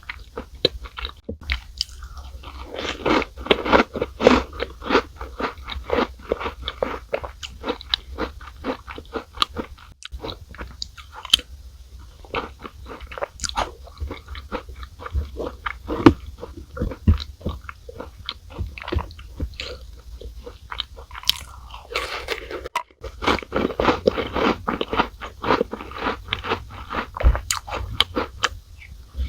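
Close-miked chewing of chocolate chip cookies soaked in milk: crunching bites and wet mouth sounds. They come in two denser, louder spells, about two seconds in and again about three-quarters of the way through.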